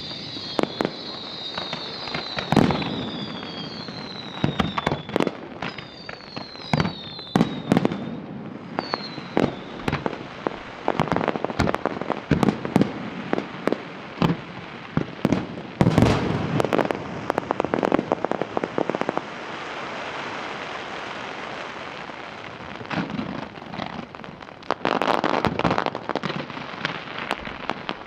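Fireworks display: many sharp bangs and pops throughout, with several falling whistles overlapping in the first third and a dense crackling near the end.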